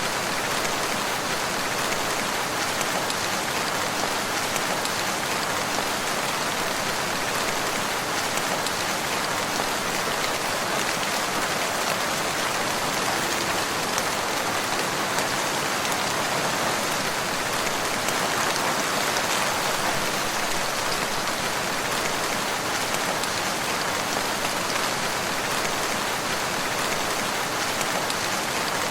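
Steady rain: an even hiss with many small drop ticks, holding constant throughout.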